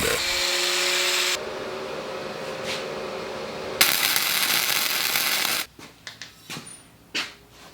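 A power tool cutting a notch into thick steel plate, running steadily in stretches that change level abruptly, then stopping about two-thirds of the way through, followed by a few light clicks and knocks.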